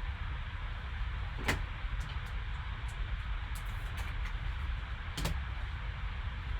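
Steady background hiss and low hum, with two sharp clicks about a second and a half in and again about four seconds later, from trading cards being handled.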